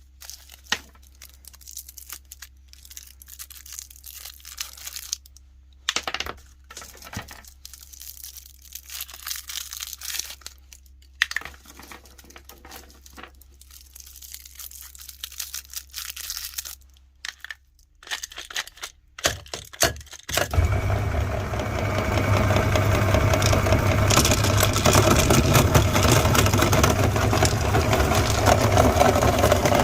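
Scattered crackling and crinkling clicks over a faint hum, then a meat grinder's electric motor switches on about two-thirds of the way through and runs steadily and loudly, grinding crunchy candy.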